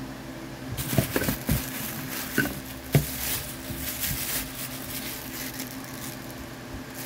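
Plastic wrapping crinkling and rustling as hands dig through a cardboard box of plastic-wrapped dumbbell parts, with a few sharp knocks in the first three seconds as the parts bump together.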